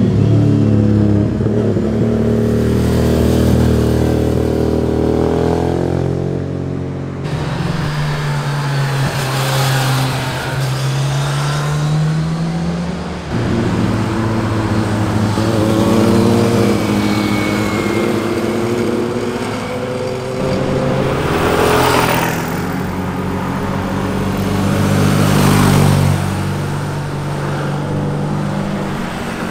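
Sport motorcycle engines revving and accelerating, one bike after another, the engine pitch rising and falling through gear changes. The sound switches suddenly from one bike to the next about 7 and 13 seconds in, and bikes rush past twice near the end.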